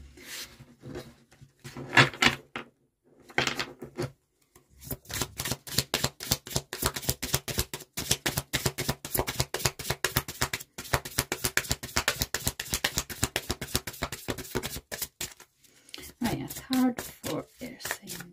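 A deck of oracle cards being shuffled by hand: a long run of rapid, irregular papery clicks that starts a few seconds in and lasts about ten seconds.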